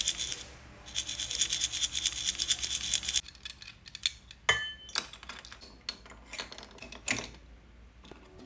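Metal keychain rings and chains rattling quickly as keychains are handled, then a few separate clinks, one ringing briefly about four and a half seconds in.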